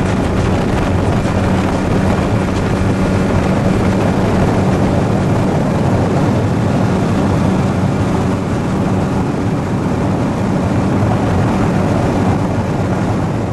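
Motorboat's outboard engine running steadily at speed, a constant hum under a rush of wind and water noise.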